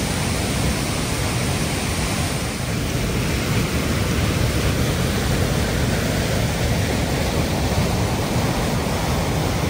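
Athabasca Falls: the steady, even rush of a large waterfall's falling water.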